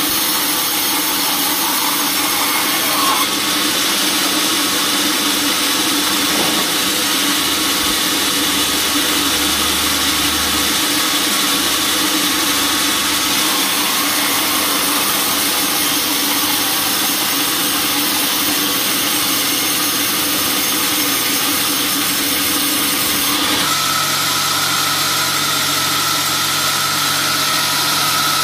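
Band sawmill running, its blade cutting lengthwise through a teak slab with a loud, steady noise. After about 23 seconds the sound changes to a different steady machine hum with a low tone and a higher one.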